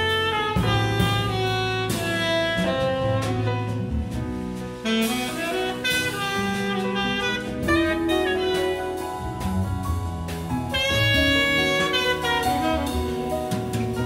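Tenor saxophone playing a solo melodic line at the front, over a jazz big band with drum kit.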